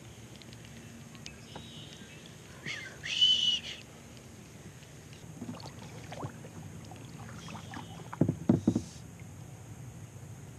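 Paddling a kayak: paddle strokes through the water over a steady low rumble, with a few low thumps about eight seconds in. A brief high-pitched squeak about three seconds in is the loudest sound.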